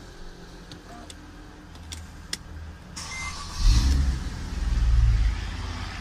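Mercedes-Benz engine being started: a few faint clicks, then the starter cranks about halfway through, the engine catches with a loud burst, revs up once and settles to a steady idle. The car now starts after its electronic ignition switch was replaced.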